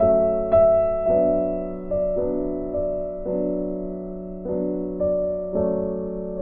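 Background piano music: a slow melody with a new note or chord struck every half second to a second, each one fading out.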